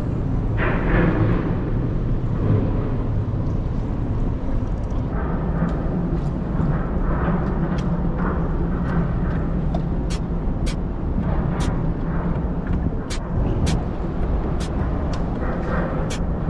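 A boat's motor running steadily at an even pitch. Short, sharp high ticks come now and then in the second half.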